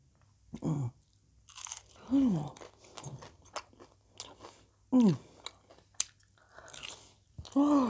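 Crisp tortilla chips being bitten and chewed close to the microphone: a run of sharp, irregular crunches with wet chewing between them.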